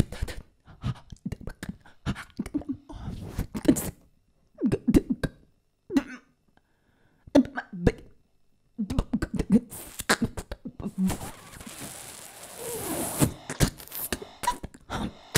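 Improvised solo voice using extended techniques: mouth clicks, pops and short guttural, choppy vocal bursts broken by silent pauses, then a long hissing noise starting about ten seconds in.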